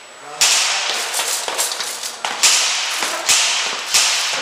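Airsoft guns firing single shots: a run of sharp cracks, about four loud ones and several smaller ones, each trailing off in echo from a large hall.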